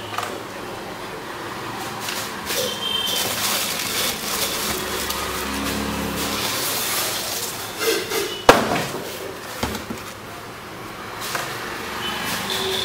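Cardboard packaging being handled: a boxed induction cooktop slid and lifted out of its shipping carton and set down, with rustling, scraping and small knocks, and one sharp knock a little past the middle.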